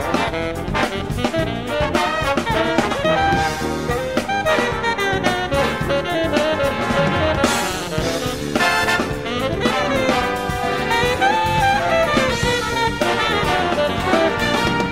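Big-band jazz recording of the tune the bass transcription follows: brass and saxophones playing over a drum kit and a busy bass line.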